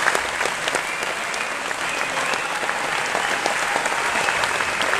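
Audience applauding in a hall, with steady dense clapping.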